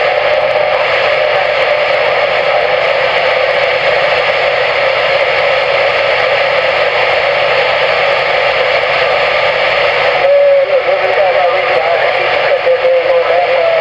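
CB radio receiver static: a steady hiss limited to the radio's voice band, with faint garbled signal under it. About ten seconds in, the static changes suddenly as another signal comes in, bringing a wavering whistle-like tone.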